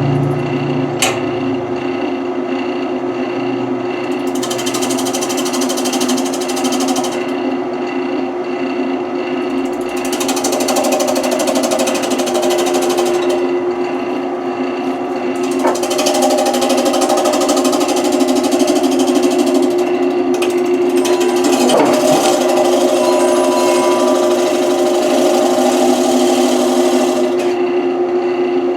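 Wood lathe running with a steady hum while a turning tool cuts into the spinning wood, the loud cutting noise coming in several long stretches that start and stop.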